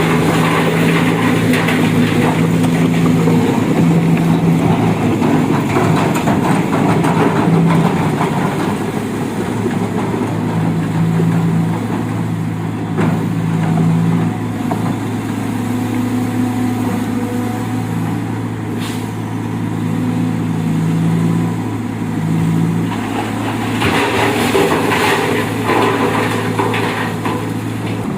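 Diesel dump truck engine running steadily under load, with rougher, louder stretches in the first few seconds and again near the end.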